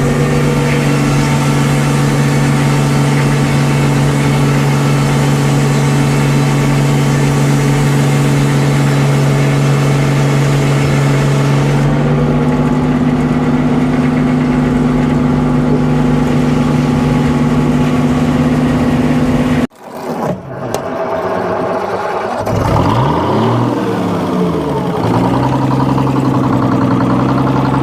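Engine running steadily at constant speed. It cuts off abruptly about twenty seconds in; then an engine's pitch sweeps up and down and settles back into a steady run.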